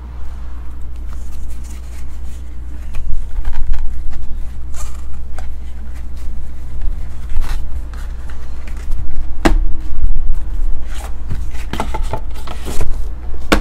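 Handling noise: scattered clicks, taps and scrapes as a hard plastic card holder and cardboard hobby boxes are moved about on a table, over a steady low hum.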